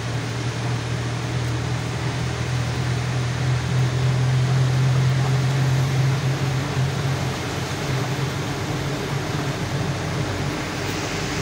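Truck's diesel engine running steadily on the move, a low engine drone over tyre and road noise heard inside the cab. It grows a little louder about four to six seconds in, then eases back.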